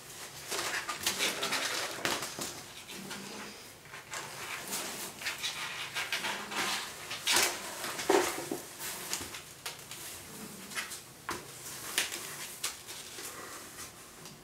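Cat rolling and squirming in a cardboard box: irregular rustling and scraping of fur and claws against the cardboard, with sharper scrapes about seven and eight seconds in.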